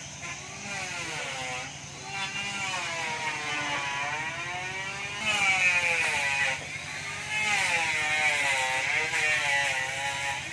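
A small engine running, its pitch dipping and rising again and again, as under changing load or throttle.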